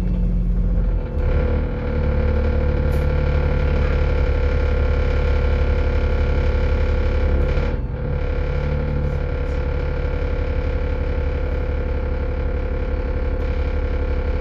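Dennis Enviro500 MMC double-decker bus under way: a steady low engine rumble with a steady drivetrain whine. The note shifts about a second in and dips briefly near eight seconds, as with a change in throttle or gear.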